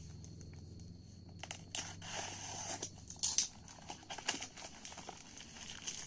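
Clear plastic wrapping being torn and peeled off a small cardboard box by hand: crinkling and tearing with many sharp crackles, starting about a second and a half in.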